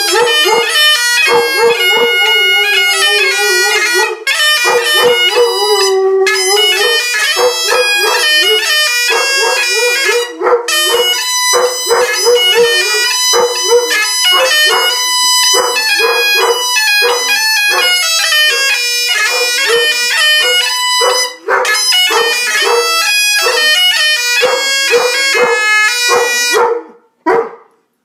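A large dog howling along with bagpipe music, with some short barks in between; the pipes play a stepping melody over a steady drone. The music and the howling stop about a second before the end.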